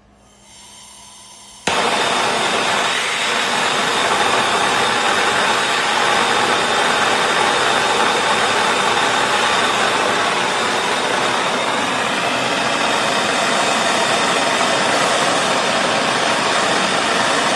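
Hose-fed MAPP gas torch: a soft hiss of gas about half a second in, then the torch lights suddenly and burns with a loud, steady hiss of flame.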